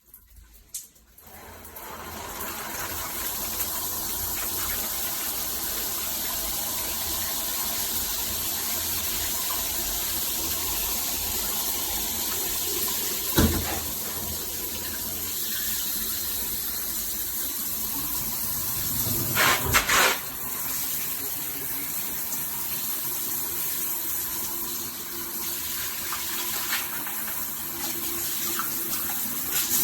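Water spraying from a Tudoccy shower head, coming on about a second and a half in and then running steadily. A sharp knock about halfway through and two more in quick succession a few seconds later stand out over the spray.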